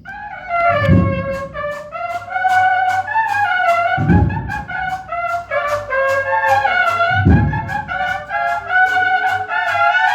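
Brass band playing a slow processional march: trumpets carry a held, stepping melody over a bass drum struck about every three seconds, with sharp snare-like strokes several times a second.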